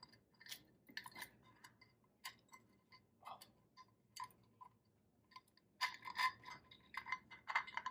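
Light metallic clicks and clinks of an engine timing chain and case parts being handled during reassembly, irregular, with a quick cluster about six seconds in and another near the end.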